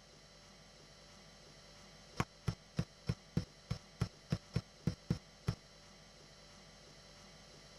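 Soft, quick footsteps, about a dozen at roughly three a second, starting about two seconds in and stopping about three seconds later, over a faint steady hum.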